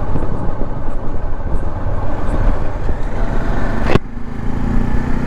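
Motorcycle on the move: engine running under a steady rumble of wind and road noise. A sharp click about four seconds in, after which the sound turns thinner.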